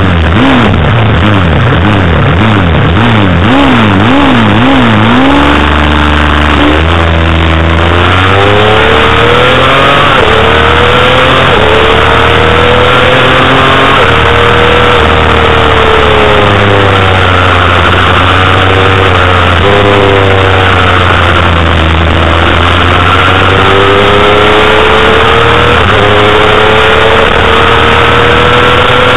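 Honda CBR250RR's inline-four engine revving hard in quick up-and-down blips on the start line, then pulling away at full throttle. The pitch climbs in long rising sweeps, each broken by a short drop at the upshift, over a steady rush of noise.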